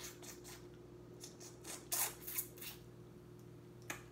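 Wet mouth sounds of someone sucking and gnawing meat off a pigtail bone held in the fingers: a run of short lip smacks and slurps, loudest about two seconds in.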